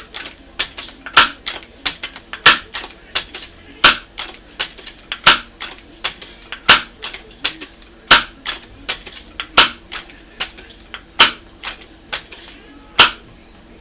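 Crosman 2200 Magnum multi-pump air rifle being pumped up for a 10-pump shot: about ten sharp clacks of the pump arm closing, one roughly every second and a half, with lighter clicks between the strokes.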